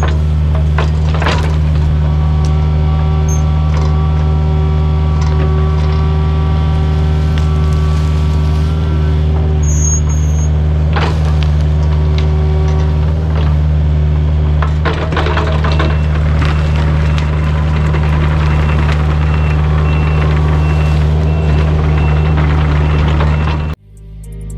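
Kubota U55-4 mini excavator's diesel engine running steadily, with a few sharp knocks and a burst of rattling about fifteen seconds in as the machine handles debris. Cuts to guitar music in the last second.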